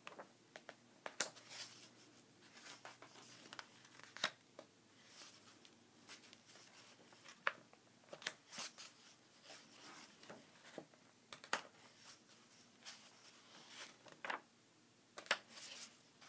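Pages of a large paperback comic-strip book being handled and turned: faint, scattered paper rustles and short swishes.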